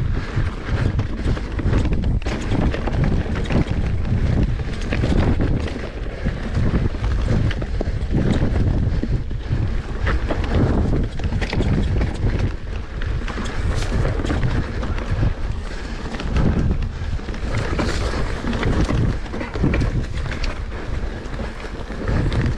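Wind buffeting the microphone: a constant low rush that keeps swelling and dipping.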